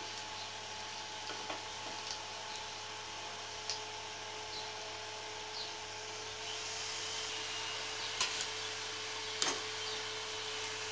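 Manchurian balls deep-frying in a kadai of hot oil: a steady sizzle that grows a little louder about halfway through. A few light clicks come from the wire strainer against the pan.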